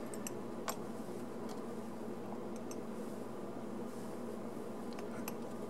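Steady low room hum with a few faint, light clicks as small model-locomotive kit parts are handled and fitted together.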